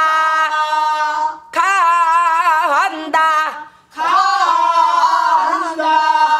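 Korean folk song sung unaccompanied by female voices: long held notes with a wide vibrato and sliding pitch, breaking briefly about three and a half seconds in.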